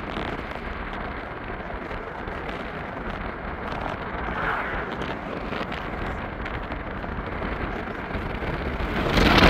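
Steady road and wind noise heard from inside a moving car, swelling louder near the end.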